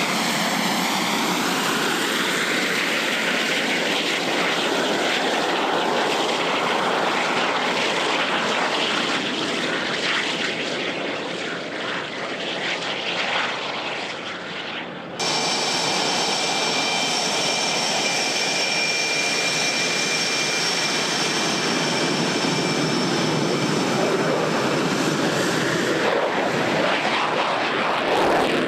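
Fighter jets, F/A-18 Hornets among them, taxiing at low power with their jet engines running loudly and steadily. After a sudden cut about halfway through, steady high-pitched whines ride over the engine rush.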